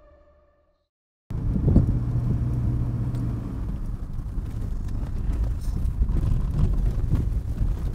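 Tones of the intro music fade out in the first second, and after a brief silence the sound cuts in to a car's cabin. The engine and tyres make a steady low rumble while driving on a rough country road, with a single thump just after the cut.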